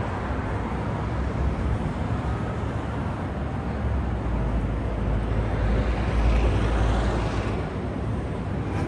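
Steady low outdoor rumble of wind and street traffic, swelling louder with more hiss about six seconds in.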